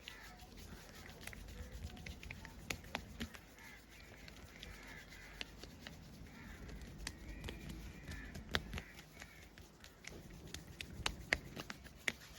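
Hands working over a person's body in a cracking and massage session: soft rubbing with scattered small sharp clicks and pops at irregular intervals, the sharpest ones in the last few seconds.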